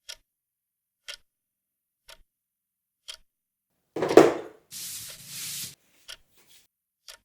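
A clock ticking steadily, about once a second. About four seconds in, a short louder sound is followed by about a second of breathy hiss.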